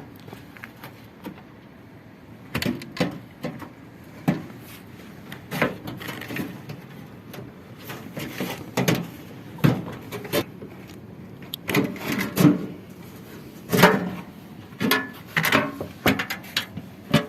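Irregular knocks and clatter of tools and parts being handled while a washing machine is taken apart, with a few heavier knocks from about twelve seconds in.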